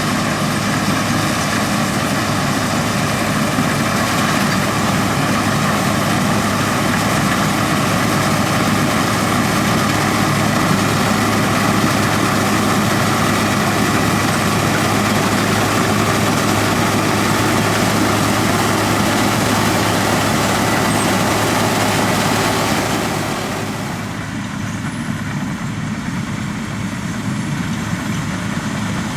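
Heavy diesel farm machinery running steadily: a constant low engine drone with several steady whining tones layered over it. Near the end it drops to a quieter, duller sound.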